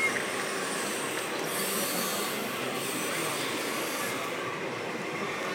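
Radio-controlled model semi-truck pulling tanker trailers, driving past with a steady mechanical running noise. A high hiss joins it for a couple of seconds in the middle.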